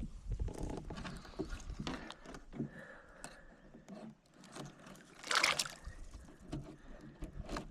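Lake water lapping and trickling around a kayak, with scattered small knocks and a brief louder rush of noise about five and a half seconds in.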